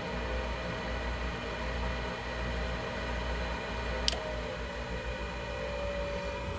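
Gas furnace running steadily through its start-up sequence, its draft inducer fan giving a steady whooshing hum. A single sharp click sounds about four seconds in.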